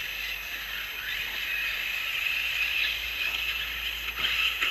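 Several 1:8 brushless electric RC buggies and short-course cars running on a dirt track: a steady high-pitched whine of electric motors and drivetrains, with a faint rise in pitch now and then as cars accelerate.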